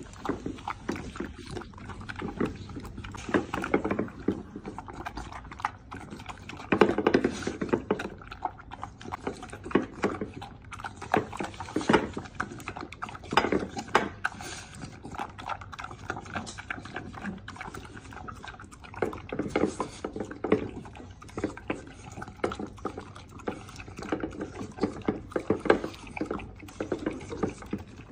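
American Bully dog eating from a stainless steel bowl: irregular chewing, slurping and licking, with frequent sharp clicks against the metal bowl.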